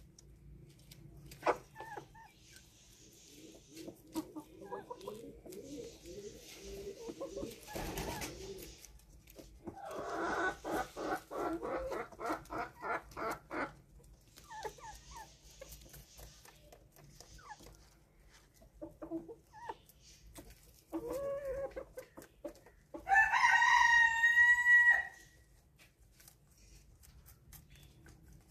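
Chickens clucking, with a quick run of clucks about ten seconds in. Near the end a rooster crows once for about two seconds, the loudest sound.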